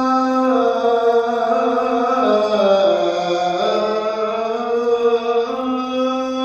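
Male voice chanting a religious supplication, holding one long melismatic vowel. The pitch sinks in a slow ornamented curve through the middle and climbs back to the starting note.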